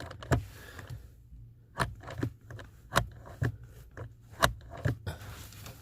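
Hyundai Tucson HVAC mode door cam turned back and forth by hand, giving about eight sharp plastic clicks at uneven intervals with some scraping in between. The door is being checked for binding: it is stiff going from defrost to the second mode.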